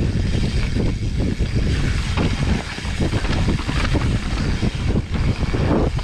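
Downhill mountain bike run: wind buffeting the microphone over the rattle and knocks of the bike and tyres on rough trail.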